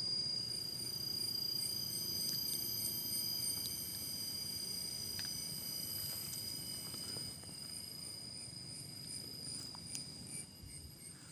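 Insects trilling steadily in several high pitches, one of them pulsing evenly, over a low rumble.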